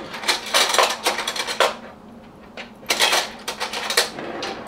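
Quick clinks and clatters of a spoon and a small jar of vanilla bean paste being handled on a kitchen counter, in two spells of about a second each.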